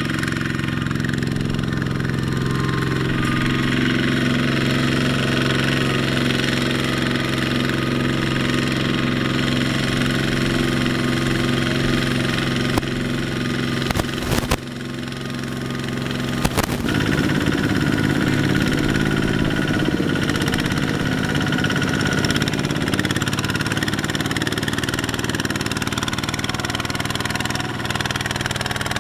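Single-cylinder diesel engine of a two-wheel hand tractor running steadily while pulling a loaded trailer. There are two sharp clicks about halfway through, after which the engine note turns more pulsing.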